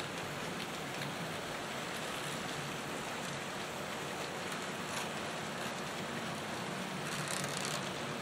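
HO scale model trains running on the layout: a steady hiss of wheels rolling on the track, with a faint low hum under it.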